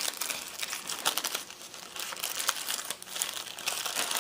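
Crinkling and rustling of packaging handled by hand, with irregular crackles throughout: the sound of swap items being pulled from their wrapping and turned over.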